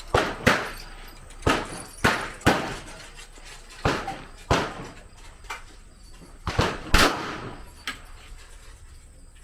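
Gunshots from the range's firing line: about a dozen sharp reports at irregular intervals, each with a short echoing tail, the loudest about seven seconds in.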